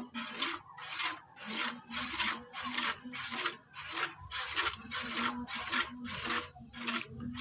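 A cow being hand-milked into a steel bucket: jets of milk hiss into the pail in a steady rhythm, about two and a half squirts a second.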